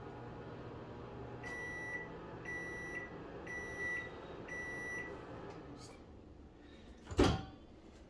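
GE over-the-range microwave finishing a one-minute run heating a cup of water. Its running hum stops about a second and a half in, then four evenly spaced high beeps signal the end of the cycle. Near the end the door is pulled open with one sharp, loud click of the latch.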